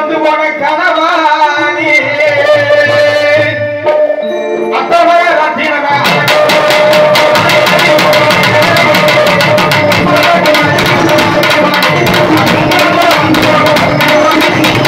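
Live folk music played through a loudspeaker system. A man sings a Tamil-language line for the first few seconds, then after a short break the drummers start fast, dense hand-drumming that carries on under a held note.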